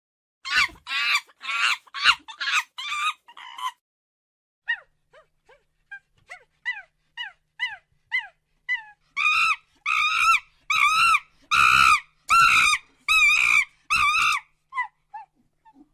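Monkey calls. It opens with a quick series of harsh, loud cries, then a run of short, quieter chirps that fall in pitch. Near the middle comes a series of louder, clearly pitched calls, each under a second, tapering off into a few short ones near the end.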